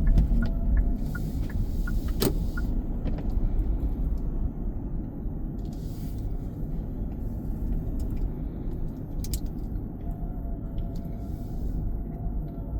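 Steady low road and engine rumble inside a moving car's cabin, with a low thump at the start. Light, evenly spaced ticks run through the first couple of seconds, and a single sharp click comes about two seconds in.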